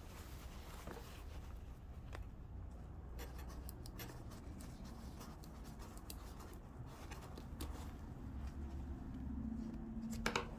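Quiet handling of a school bag's zipper: soft rubbing and scratching with scattered light clicks, over a low steady hum.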